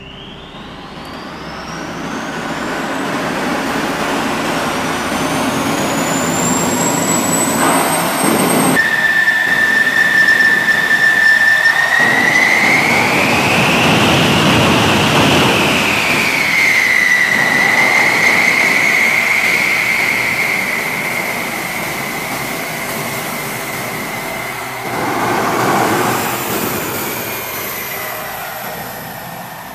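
F-16 fighter jet's turbofan engine: a high whine rising steadily as the engine spools up, cut off abruptly, then a steady high whine that swells and falls back, over a loud jet rush.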